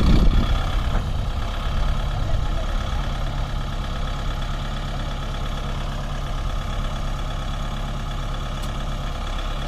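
Kubota MU5501 tractor's four-cylinder diesel engine running under load, hitched to a trolley loaded with sugarcane. It is louder for the first couple of seconds, then settles to a steady run.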